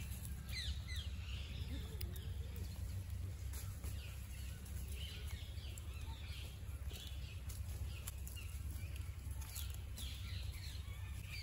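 Outdoor ambience: small birds chirping in quick, short calls again and again, over a steady low rumble.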